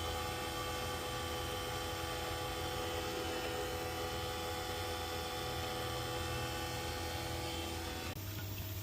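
Steady electrical hum with several steady tones, changing abruptly about eight seconds in.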